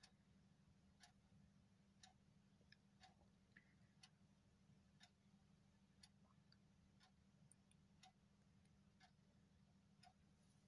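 Near silence, with faint, even ticking at about one tick a second over a low steady hum.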